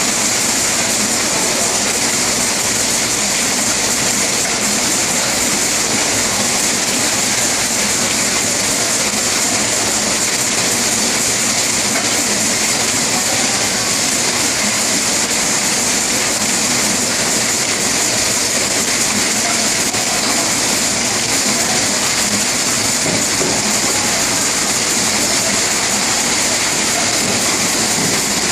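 Rotary automatic pouch packaging machine running: a steady, dense mechanical noise with a strong high hiss and no clear single beat.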